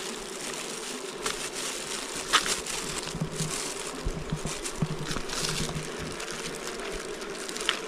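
A swarm of wild honey bees buzzing steadily around their opened nest, with a few sharp crackles and knocks over the hum, the loudest about two and a half seconds in.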